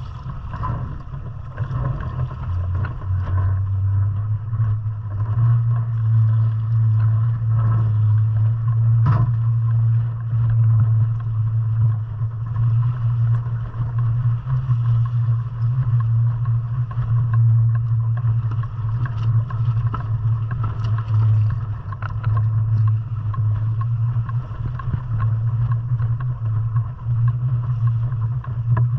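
Catalina 22 sailboat under way, with a steady low drone and a faint rushing haze above it.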